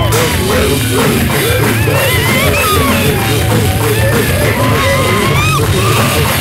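Loud rock or metal music with drums, over which a lead line slides and bends up and down in pitch.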